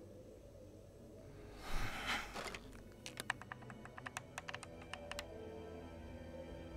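Push-button desk telephone being dialled: a quick run of about a dozen key clicks, a moment after a brief rustle. Soft music plays underneath.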